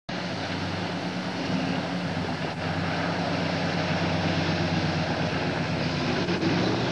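Full-size pickup truck's engine running steadily under load as it drives through deep standing water, with water splashing and spraying off its tires.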